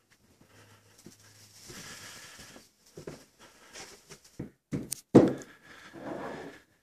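Footsteps and rustling as someone walks over plastic sheeting and drop cloths laid on the floor, with scattered light knocks and a louder knock a bit past five seconds in.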